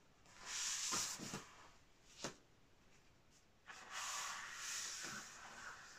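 Large sheets of heavy printmaking paper sliding and rustling against each other as they are shuffled by hand through a stack, in two stretches, with a single light tap between them.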